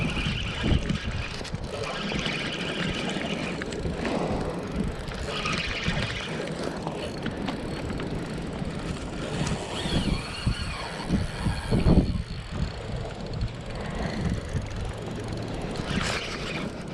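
Spinning reel being cranked and its drag ticking in several short spells while a hooked salmon is played, over a steady rumble of wind on the microphone.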